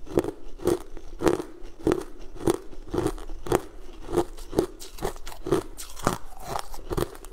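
A person chewing sugar-coated jelly candies close to a clip-on microphone, with a crunch of chewing about twice a second.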